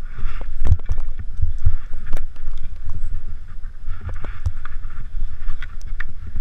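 Skis hissing and scraping through powder snow, with wind buffeting an action camera's microphone as a low rumble and many sharp knocks and clatters throughout.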